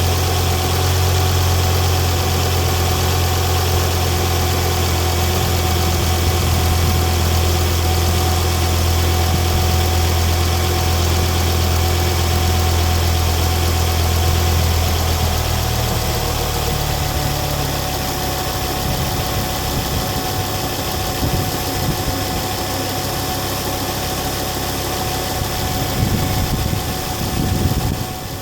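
Ford Focus ST 225's turbocharged 2.5-litre five-cylinder engine idling, with a steady thin whine over it. About halfway through, the deep steady hum turns into an uneven rumble.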